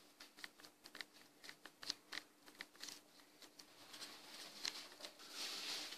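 Faint, irregular small clicks and taps, several a second, with a soft breathy hiss near the end.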